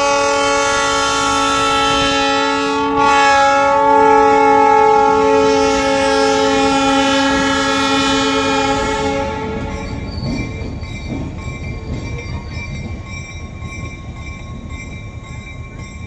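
A diesel switcher locomotive's multi-note air horn, held as one long chord for about nine seconds as the locomotive passes. After the horn stops, the locomotive's engine and its wheels on the rails carry on, fading as it runs away.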